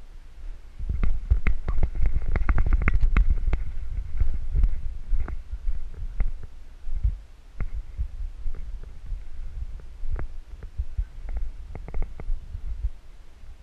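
Footsteps thudding quickly down a staircase, then sparser steps and knocks across the floor, with light clicks of gear rattling.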